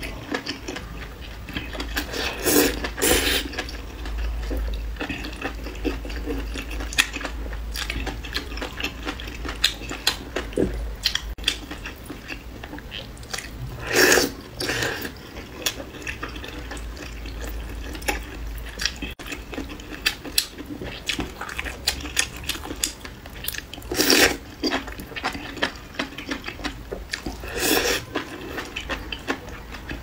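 Wet slurping of thin noodles from a bowl of chili-oil soup, with several loud slurps spread through and wet chewing and small mouth clicks between them.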